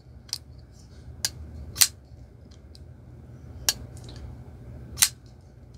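Zero Tolerance 0452CF framelock folding knife being snapped open and shut, giving sharp metallic clicks a second or so apart as the blade pops off the detent and the titanium lockbar snaps into place, the blade swinging on ceramic pivot bearings. The lockbar has just been tuned, and the lockup still has a tiny bit of lockstick.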